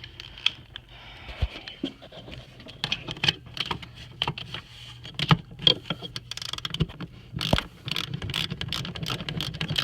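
Metal hand tools clinking and clicking irregularly as a socket is fitted onto the injector-cup puller tool and turned, with the clicks coming faster near the end, over a steady low hum.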